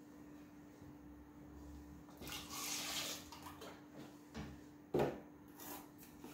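Liquid pouring and splashing into a cooking pot for about a second, then a sharp click near the end as the plastic lid of a chocolate-powder can is pried off, over a faint steady hum.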